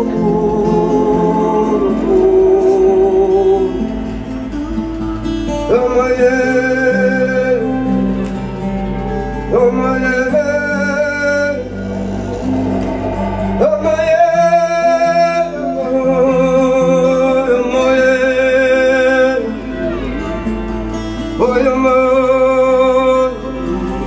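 Live acoustic band music: acoustic guitar chords under long, wordless sung notes that waver with vibrato, one held line after another.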